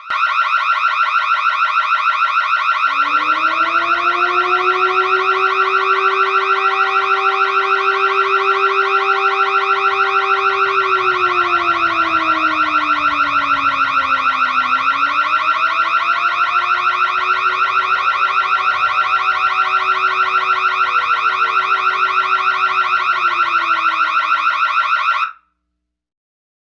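Electronic burglar alarm sounding: a loud, high, rapidly pulsing tone, joined about three seconds in by a lower tone that sags and climbs again midway. It cuts off suddenly shortly before the end.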